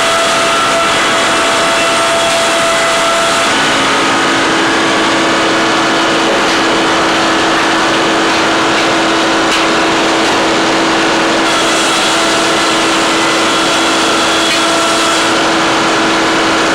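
Heavy forestry machine's engine running steadily, with a held hum whose pitch steps up about four seconds in.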